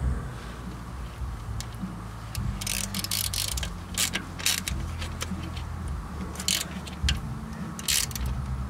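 Ratchet socket wrench clicking in several short bursts, tightening a nut down on the newly installed alternator's connections.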